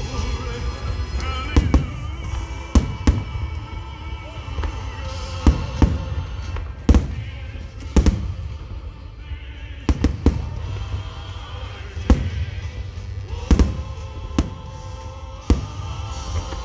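Fireworks shells bursting in about a dozen sharp bangs at irregular intervals, roughly one every second or so. Loud music plays underneath from large outdoor speakers.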